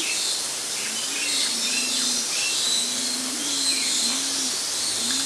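Birds calling: high chirps from small birds, and from about a second in a low, repeated hooting call about once a second, over a steady hiss.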